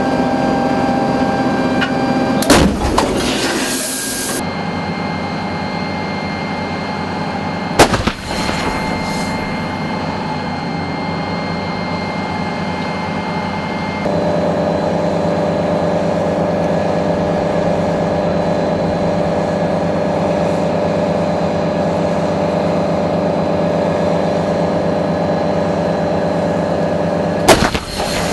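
M109 Paladin self-propelled howitzer's 155 mm gun firing three times, about two and a half seconds in, about eight seconds in, and again near the end, each a single sharp report. A steady engine hum runs under the shots.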